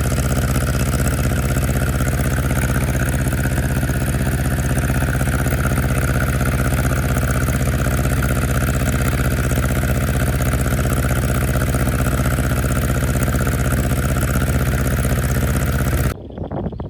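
Tractor engine running steadily at a constant speed, cutting off suddenly near the end.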